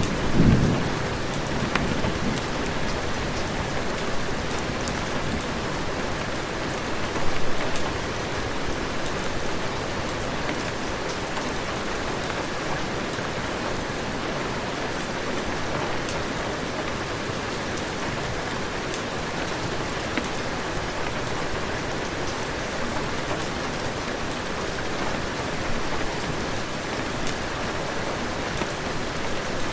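Heavy rain falling in a steady, dense hiss. A low thunder rumble dies away in the first second, and the rain swells briefly louder about seven seconds in.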